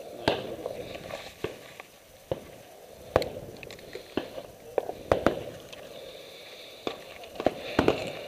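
Irregular sharp clicks and knocks of gear being handled, with footsteps on dirt.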